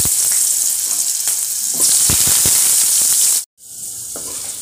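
Diced potatoes sizzling loudly in hot mustard oil in an iron kadai, with a few knocks as pieces drop into the pan. The sound cuts out briefly about three and a half seconds in, then the sizzling goes on more quietly.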